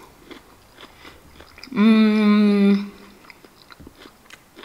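A person chewing a mouthful of tofu, with small wet mouth clicks, and about two seconds in a steady closed-mouth 'mmm' of enjoyment held for about a second.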